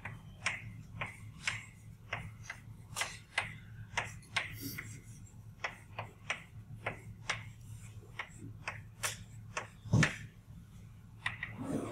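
Chalk tapping and scratching on a blackboard as formulas are written: a run of short, irregular clicks, with one louder knock about ten seconds in, over a low steady hum.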